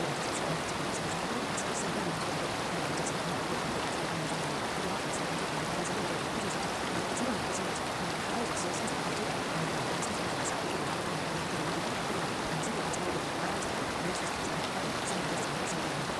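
Steady rain sound with scattered faint high ticks of drops.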